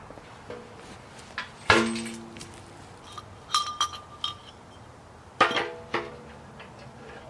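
Tubular steel legs being fitted into a heavy-gauge steel camp wood stove: a few sharp metal clanks that ring on briefly, the loudest about two seconds in, then a quick run of clinks and a last pair of clanks near the end.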